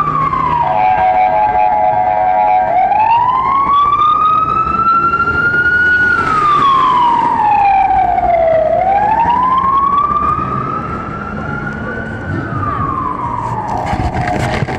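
Fire engine's wailing siren, slowly rising and falling in pitch through about two full cycles, softer in the last few seconds. A steady horn blast of several tones at once sounds for about two seconds near the start and again near the end.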